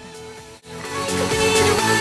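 Background music: a quiet track cuts out about half a second in, then louder electronic music with a steady beat comes in and builds.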